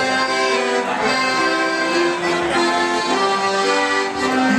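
Piano accordion playing a melody in held notes, several reeds sounding together, stepping from note to note.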